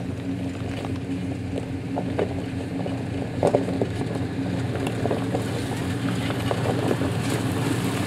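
A Ford truck crawling slowly over a rocky dirt road, its engine running steadily with a low hum while loose rocks click and crunch under the tyres. The sound grows slightly louder as it approaches.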